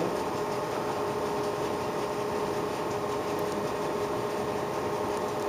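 Steady room hum with a faint constant tone running underneath; no separate sounds stand out.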